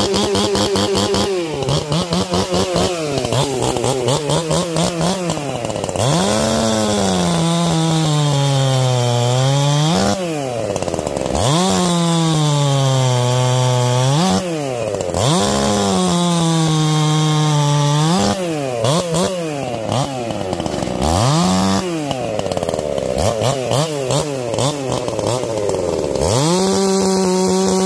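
Ported Holzfforma G366 two-stroke chainsaw with a modified exhaust, cutting a log at full throttle. The engine note sags again and again as the chain bites into the wood, then climbs back as the load eases. It runs steady and high at the start and again in the last couple of seconds.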